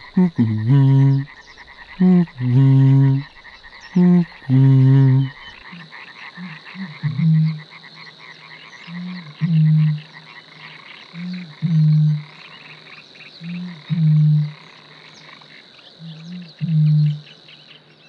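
Eurasian bittern booming: a series of deep, hollow hoots, the lowest voice of any Polish bird, likened to blowing across a bottle. Three louder booms come in the first five seconds, then a run of quieter booms about every two and a half seconds, each led by a short lead-in note. Booming is the male's breeding-season call.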